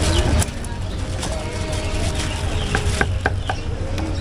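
Knife chopping on a board in quick, even strokes, about four a second, starting a little under three seconds in, over a steady low hum.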